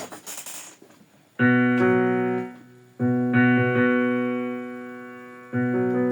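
Electric keyboard playing three held chords, each struck and left to ring and fade before the next, about a second and a half in, three seconds in and near the end.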